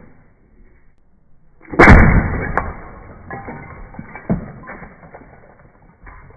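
A pellet gun shot bursting a soda-filled glass bottle: one loud crack about two seconds in that dies away over about a second, followed by a few smaller knocks.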